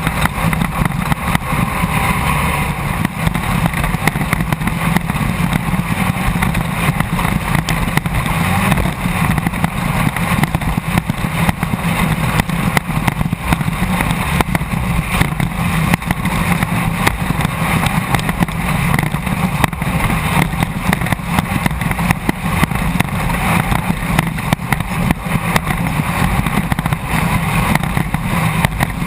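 Engine of a Class 1600 off-road race buggy, an air-cooled 1600 cc VW engine, running hard under steady load, heard from inside the car. Constant clatter and knocks run under it throughout.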